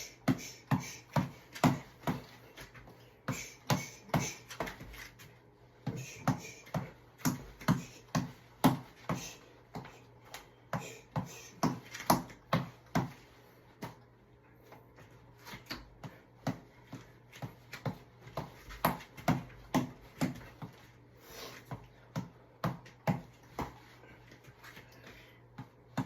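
Boxing reflex ball (tap ball) being punched over and over: sharp taps about two to three a second, in runs broken by short pauses where the rally stops.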